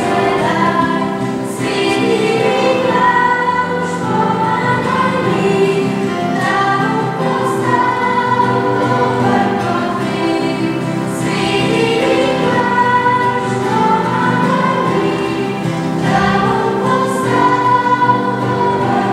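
A choir singing a song, with long held notes.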